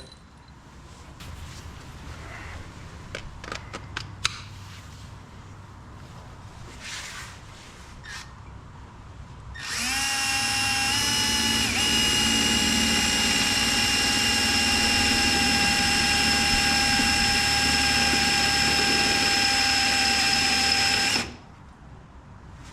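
A few light knocks and clicks of handling, then a power drill starts about ten seconds in and runs steadily for about eleven seconds while drilling the marked hole for the mounting bar, its whine holding one pitch before it cuts off suddenly.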